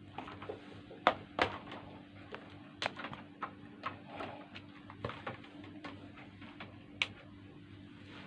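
Scattered sharp clicks and light knocks from a laptop being handled and tried out, over a faint, steady low hum.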